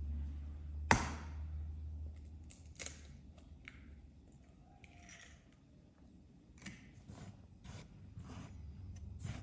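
An egg knocked against the rim of a pan with a sharp crack about a second in, then the shell pulled apart over flour. Near the end, hands mix the egg into the flour with a run of short, soft rustling strokes.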